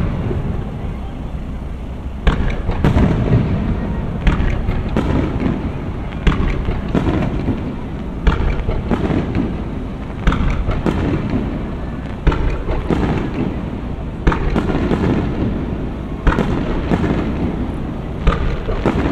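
Aerial fireworks shells launching and bursting in a steady run of booms, about one every second or so, each followed by a lingering rumble.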